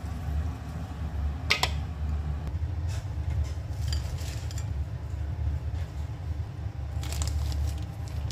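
Wire spider strainer clinking against the frying pan and a ceramic plate as fried potato wedges are lifted out and tipped onto the plate: a few separate sharp clinks and knocks over a steady low hum.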